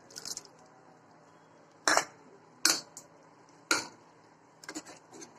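Steel spoon knocking against the pressure cooker pot as ground coconut paste is scraped in. There are three sharp knocks about a second apart, then a quick run of lighter taps near the end.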